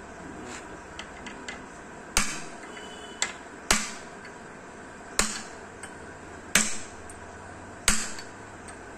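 Sharp hammer strikes on metal parts of a diesel engine block being assembled: six loud taps, irregularly spaced about a second or so apart, each with a short ring, and a few lighter ticks before the first one.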